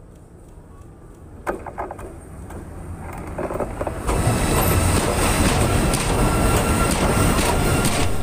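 Ae 6/6 electric locomotive rolling toward and then directly over a microphone lying between the rails. It grows louder, with a sharp knock about one and a half seconds in. From about four seconds in, loud wheel-on-rail noise with a faint steady whine fills the sound as the locomotive passes overhead.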